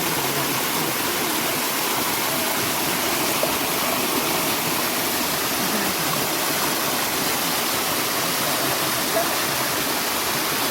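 Water of a mountain valley stream rushing steadily, an even unbroken hiss.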